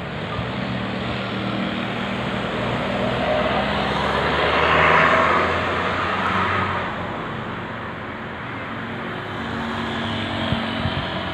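A road vehicle passing by: engine hum and road noise swell to their loudest about five seconds in, then fade, over a steady low engine hum.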